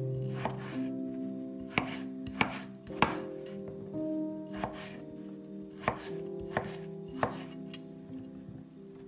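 Chef's knife dicing raw potato on a wooden cutting board: a series of sharp, irregular strikes as the blade cuts through and hits the board, over background music.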